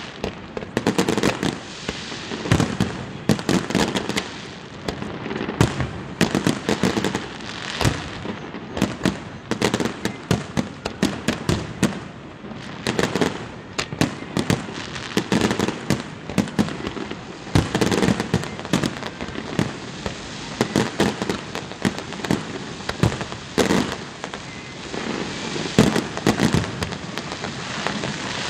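Aerial fireworks display going off: a dense run of sharp bangs, several a second, overlapping without a pause.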